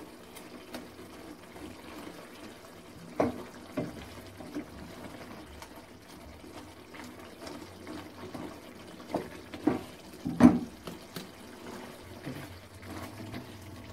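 Wooden spatula mashing boiled potato cubes in their cooking water in a metal pot: wet squelching and sloshing, with a few short knocks of the spatula against the pot, the loudest about ten and a half seconds in.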